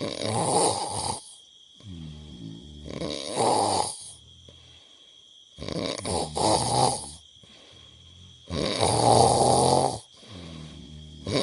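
Heavy snoring: four loud, rasping snores about every two and a half to three seconds, with quieter pitched breaths between them.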